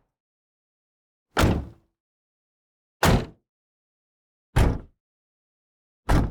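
Car or van doors being slammed shut: four single closes about a second and a half apart, each a short, solid thump that dies away quickly. The last one lands near the end.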